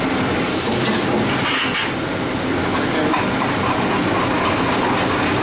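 Steady loud background noise of a commercial kitchen, with pans on a lit gas range and brief hissing about half a second in and again just under two seconds in.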